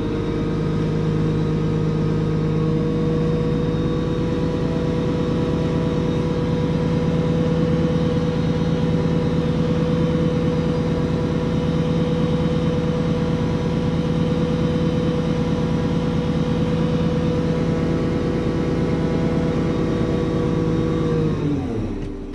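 Front-load garbage truck's diesel engine running at a steady raised speed, heard from inside the cab. The engine note drops away about 21 seconds in.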